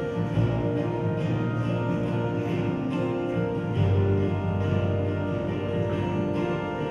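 Live band music led by strummed guitars, with a low bass note coming in about four seconds in.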